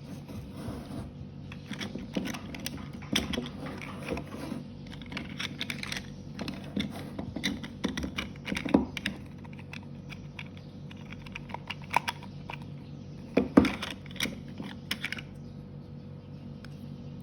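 Irregular small clicks, taps and rustles of hands handling toy packaging and plastic action figures, busiest early on and thinning out near the end, over a faint steady hum.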